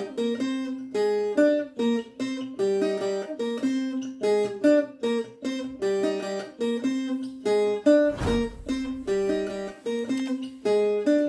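Cuban tres plucked, playing the short repeating intro figure of a changüí, played four times over. There is a louder strummed stroke about eight seconds in.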